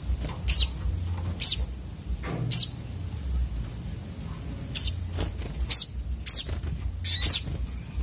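Sogok ontong birds (little spiderhunters) giving sharp, high chip calls, seven at uneven intervals, with a flutter of wings as one flies across the cage near the end.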